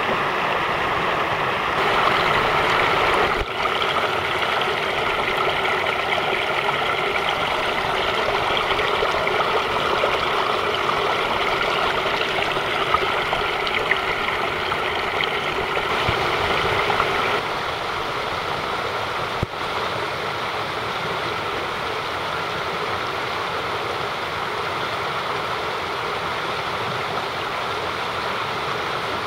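Mountain stream water rushing, a steady full sound that changes character abruptly twice, a few seconds in and a little past halfway, where it turns slightly quieter and duller.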